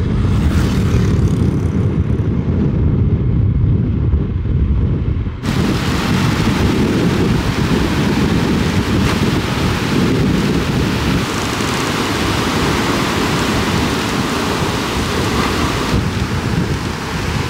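Thunderstorm with heavy rain: a deep, continuous rumble of thunder and wind, with the full hiss of the downpour coming in suddenly about five seconds in.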